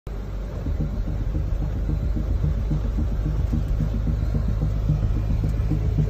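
Steady low rumble of a vehicle moving through a flooded road in torrential rain, with an even hiss of rain and water.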